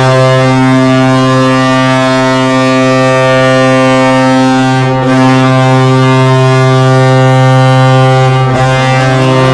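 Sibir Novosibirsk's ice hockey goal horn blowing: one loud, deep, steady blast with many overtones, dipping for a moment about halfway through and then sounding on.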